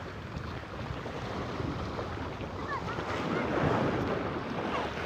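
Shallow sea surf washing and churning around the waders, with wind buffeting the microphone.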